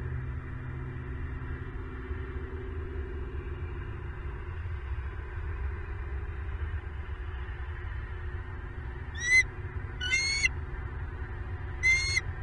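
Bald eagle giving three short, high, thin calls near the end, over a steady low rumble.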